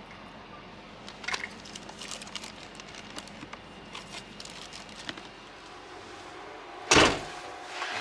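Plastic ice packs being handled and set into a plastic cooler box, with scattered light clicks and knocks, then one loud thud about seven seconds in.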